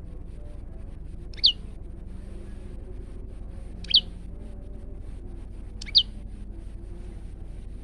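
Male prenjak lumut calling: three short, sharp whistled calls about two seconds apart, each sliding quickly downward in pitch, over a steady low hum.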